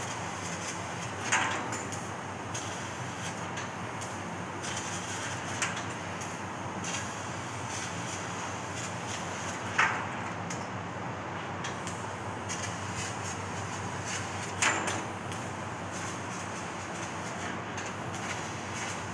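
Fiber laser cutting machine working through sheet metal: a steady hiss and machine noise, broken by four sharp short pops roughly every four to five seconds.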